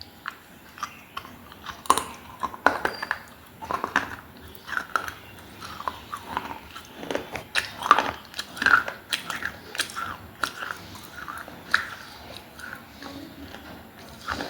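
Pieces of baked clay diya being bitten and chewed close to the microphone: irregular sharp crunches of the clay cracking between the teeth, with a few of the loudest bites about two and eight seconds in.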